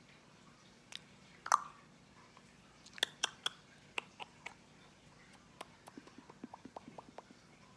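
Sharp clicking noises made by a person to get a cat's attention: single clicks, the loudest about one and a half seconds in, three in quick succession around three seconds in, then a fast run of softer ticks in the second half.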